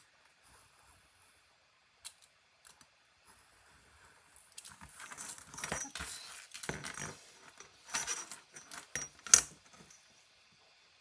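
Craft knife cutting cardstock along a steel ruler, with a few light clicks. Then the metal ruler is slid and lifted across the cutting mat among loose paper pieces, making scraping and rustling with a metallic clatter, and it is set down with a sharp clack near the end.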